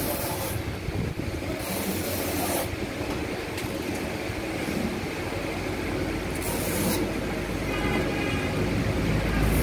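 Steady low rumbling background noise, with a few hissing strokes of about a second each as a hand knife is drawn through tyre rubber; the rumble grows louder near the end.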